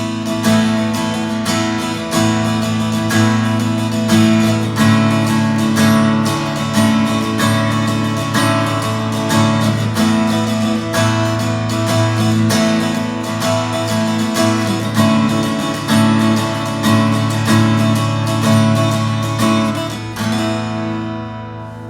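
KAMA acoustic guitar strummed in a run of chords, each strum ringing on into the next, the last chord dying away near the end.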